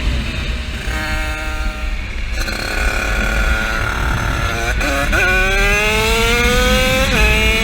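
A 50cc motorbike engine running under power. Its pitch holds fairly steady, dips briefly about five seconds in, then climbs steadily as it accelerates and drops sharply near the end at a gear change before climbing again.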